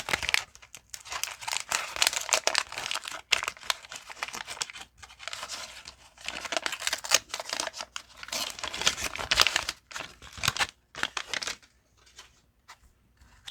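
Waxed-paper wrappers of baseball card packs crinkling and tearing as packs are handled and ripped open, in uneven rustling spells that die away near the end.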